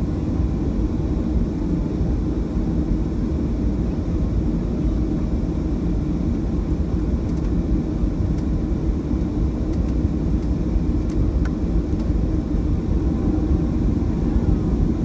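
Steady low rumble of a Boeing 737-700's CFM56-7B jet engines at low taxi thrust, heard inside the cabin from a window seat over the wing, with no spool-up.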